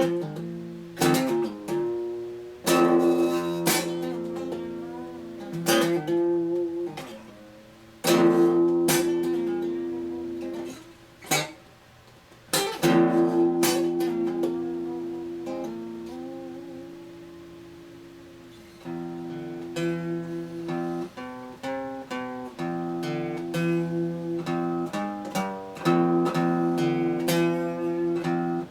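Instrumental break on acoustic guitar: strummed chords left to ring and fade, several times over, then steadier rhythmic strumming picks up about two-thirds of the way in.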